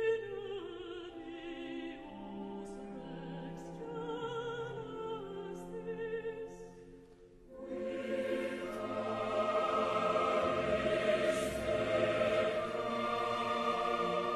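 Classical background music with a singing voice wavering in vibrato over accompaniment. It thins out and drops away about seven seconds in, then returns as a fuller, louder passage.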